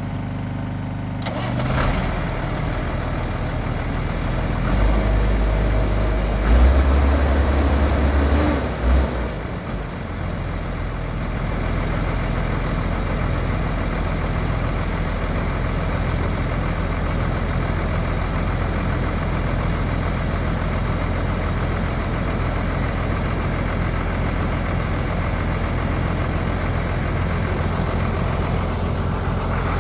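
Ford F-700's 6.6-litre turbo diesel engine running after sitting a long time without being started. It revs up and down for a few seconds, then settles into a steady idle about ten seconds in.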